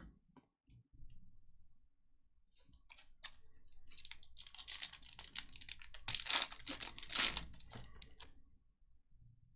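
Foil wrapper of a trading card pack tearing and crinkling, with a series of rustling bursts that start about two and a half seconds in and stop shortly before the end.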